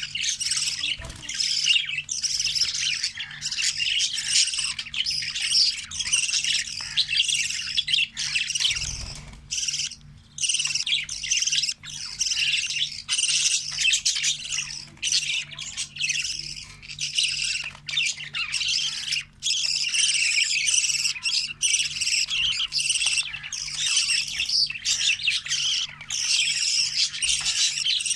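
Budgerigars chirping and squawking in a dense, continuous chatter of short high calls, with a brief lull around the middle.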